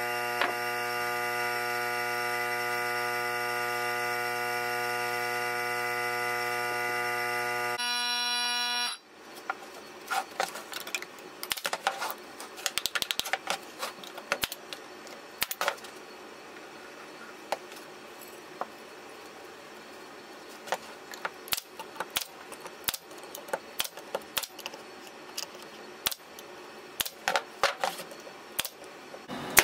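A steady electrical hum with many overtones cuts off abruptly about eight seconds in. After it come scattered light knocks and clicks of plywood pieces and tools being handled and set down on a plywood workbench.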